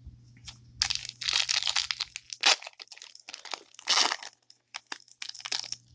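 Plastic foil trading-card pack wrapper crinkling and crumpling in irregular crackly bursts, starting about a second in and stopping shortly before the end.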